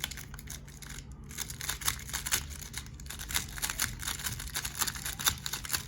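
Rubik's cube being turned very fast, a rapid stream of plastic clicking and clacking from the layers snapping round as the R prime U2 sequence is spammed over and over.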